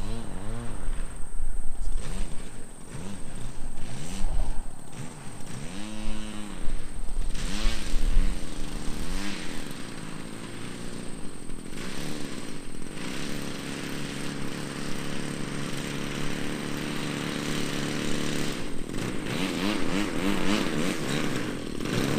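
Small gas engine of an RC Piper Cub model airplane (20cc gas motor) running in flight. Its pitch rises and falls over and over for the first ten seconds or so, then holds steady for several seconds before wavering again near the end.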